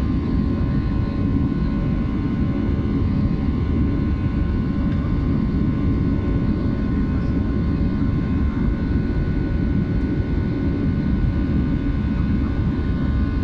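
Jet airliner's turbofan engines at climb thrust just after takeoff, heard inside the cabin: a steady low rumble with a steady whine from the engines riding over it.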